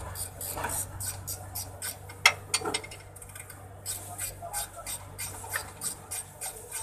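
Ratchet wrench clicking in quick, even strokes, about five clicks a second, while a nut is tightened on a truck's new upper suspension arm. One sharper metallic click comes a little past two seconds in.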